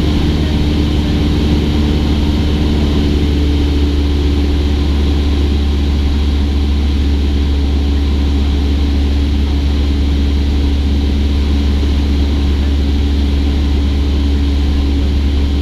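Cessna 172's piston engine and propeller running steadily, a constant low drone with no change in pitch.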